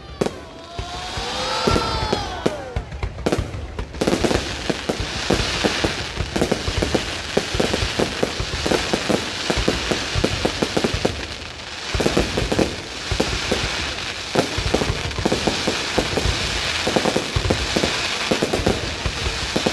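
New Year's Eve fireworks going off in a dense, continuous barrage of bangs and crackles, many per second. A brief rising-and-falling pitched tone sounds about a second in.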